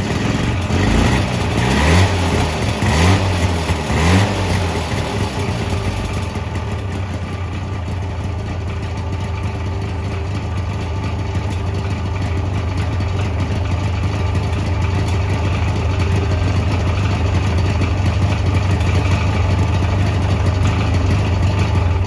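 Subaru Sambar's 360cc two-stroke engine blipped about four times in the first few seconds, pitch rising and falling each time, then settling into a steady idle.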